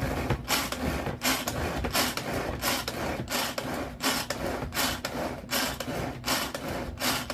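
Tupperware pull-cord chopper worked fast by hand, its blades whirring and rasping through a strawberry ice-cream mixture in quick repeated strokes, about four a second. The strokes start abruptly.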